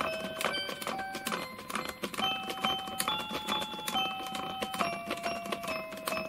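KiraKira PreCure A La Mode Sweets Pact toy compact playing an electronic melody through its small speaker while its button glows pink: a tune of held notes stepping up and down, over a quick ticking rhythm.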